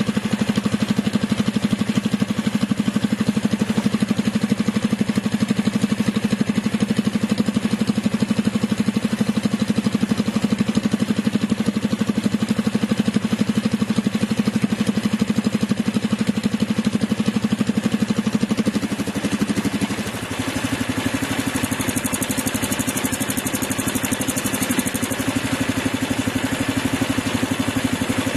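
Predator 420 single-cylinder four-stroke engine idling steadily on an open header with no muffler, a loud, unmuffled exhaust note. About twenty seconds in the note changes and gets a little brighter.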